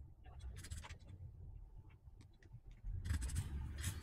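Faint small scrapes and ticks of a soldering iron tip working on a mouse circuit board's switch pads, then a louder stretch of scratching and rubbing from about three seconds in as the board is handled by hand.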